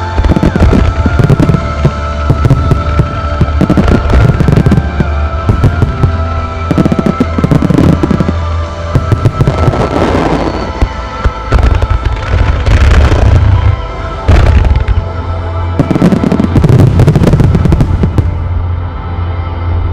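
Dense volleys of aerial fireworks bursting, with deep booms and crackle, over accompanying music with held tones. The bursts stop near the end and the music carries on.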